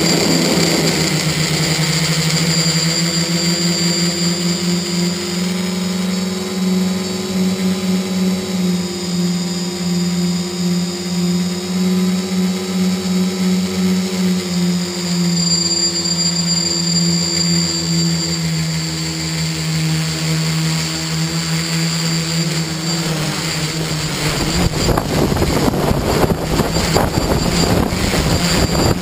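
Tricopter's electric motors and propellers buzzing steadily in flight, the pitch rising and falling a little with throttle. In the last few seconds a rough, crackly rushing noise takes over.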